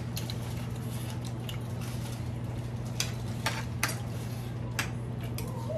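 Spoon clinking and scraping against a ceramic plate during a meal, with several sharp clinks in the second half, over a steady low hum.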